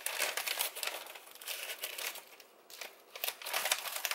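Crinkling and rustling in several short spells as a pack of dried nori sheets is handled and opened.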